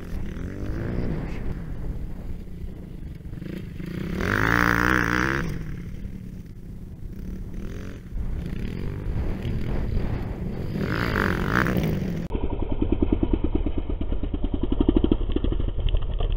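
Dirt bike engines revving up and down as the bikes ride across the field, loudest about four to five seconds in and again near eleven seconds; for the last few seconds an engine runs with a steady, even throb.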